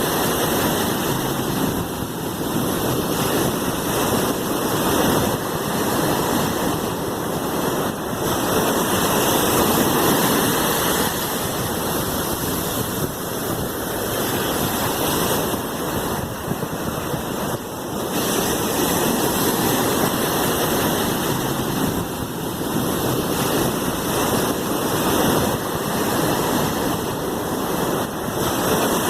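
Sea waves washing in a continuous rushing surf, swelling and easing gently every few seconds.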